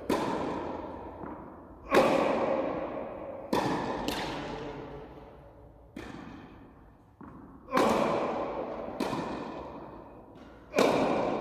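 Tennis rally: a ball struck by rackets and bouncing on a hard court, each sharp pop trailing off in a long echo under the hall's metal roof, coming about every one to two seconds.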